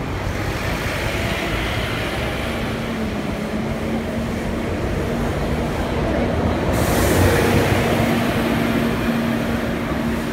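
City bus passing slowly close by, its engine running with a steady hum, in street traffic. A hiss comes in about two-thirds of the way through, where the noise is loudest.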